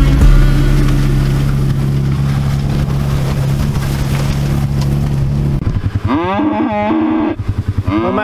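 A vehicle engine running steadily, its drone dropping away about five and a half seconds in. Then a Highland cow moos, one rising and falling call, with a second moo starting right at the end.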